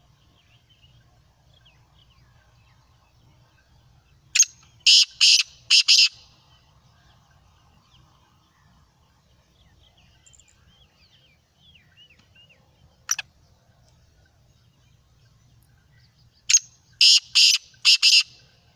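Black francolin calling twice, about twelve seconds apart. Each call is a short harsh note followed by three longer grating notes, lasting under two seconds. A single sharp click falls between the calls, with faint chirps in the background.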